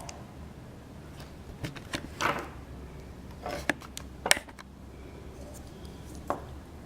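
Scattered light clicks and knocks of small hard objects being handled, about seven in all, the sharpest a little over four seconds in, over a low steady hum.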